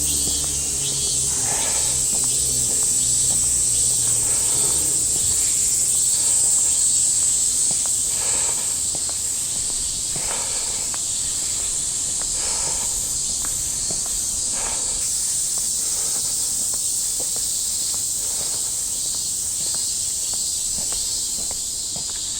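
A summer chorus of cicadas: a steady, loud, high-pitched drone with a faster pulsing call beneath it.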